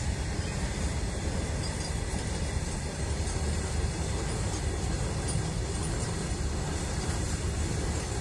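Freight train of open-top box wagons rolling past close by, a steady, unbroken rumble of wheels on rails.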